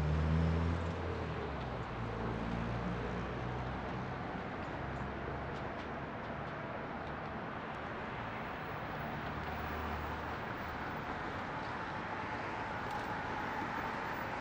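Urban traffic noise: a steady hiss of city traffic with the low drone of a vehicle engine that comes and goes, strongest at the start.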